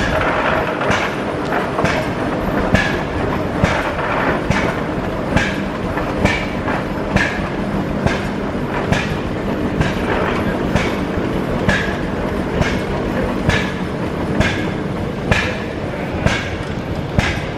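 1906 Frick steam traction engine running, its exhaust chuffing in an even beat a little faster than once a second, over a steady low hum.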